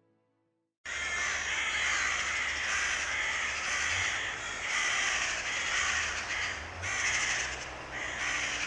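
Several carrion crows cawing harshly in rapid, overlapping 'kraaa' calls, beginning about a second in. The calls are alarm calls, which come faster and break off more often than the birds' contact or territorial calls.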